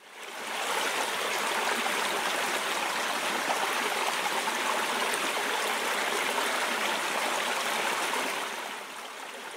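Water spilling over a low dam's spillway: a steady rush of falling water that fades in at the start and drops to a quieter level near the end.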